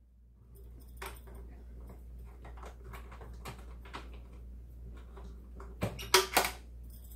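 Small metal clicks and knocks of a PRC-77 radio's battery-box latches being worked open and the steel case being handled, with a few louder knocks about six seconds in.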